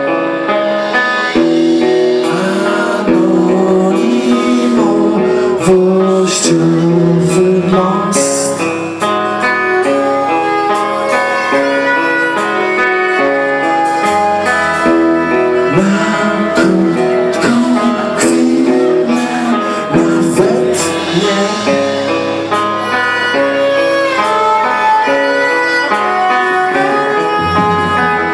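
Live band playing an instrumental passage: a bowed violin over a hollow-body electric guitar, with low bass notes and drums underneath.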